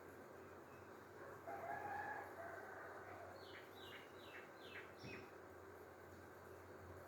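Faint rooster crowing once, about a second long, then a small bird giving five quick chirps, each falling in pitch, over a low steady hum.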